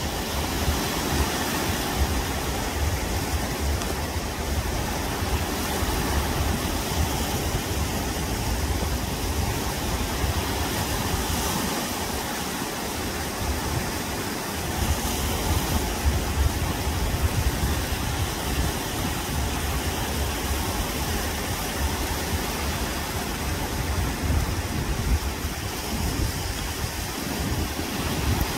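Small waves breaking and washing up around a beached boat in shallow water. A steady rushing of surf with a fluctuating low rumble beneath it.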